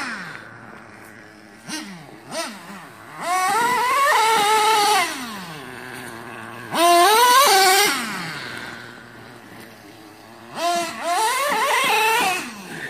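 Traxxas Revo 3.3 nitro RC monster truck's small two-stroke glow engine revving in bursts as the truck is driven, its pitch climbing and falling with each squeeze of the throttle. Two short blips come about two seconds in, then longer runs around four seconds, seven seconds and near the end, with a lower, quieter note between them.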